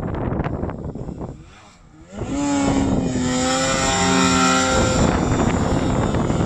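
Arctic Cat Alpha One snowmobile's two-stroke engine revving high as the sled carves close past, its pitch rising briefly and then holding steady for a couple of seconds before it cuts off suddenly. Wind buffets the microphone before and after the engine note.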